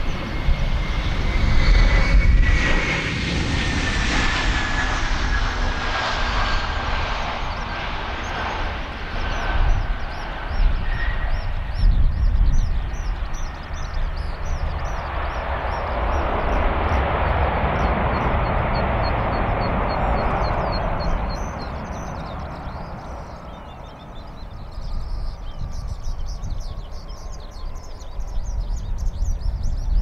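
Airbus A321 airliner landing: its jet engines' whine falls slowly in pitch through touchdown, then a broad swell of engine noise rises and fades as the reverse thrust is used on the rollout. Strong wind rumbles on the microphone throughout, and birds chirp faintly near the end.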